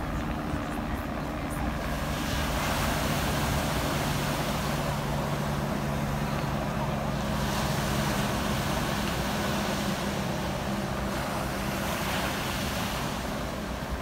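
Helicopter flying over the beach, a steady low engine and rotor hum, over surf breaking on the shore in swells of noise about every five seconds.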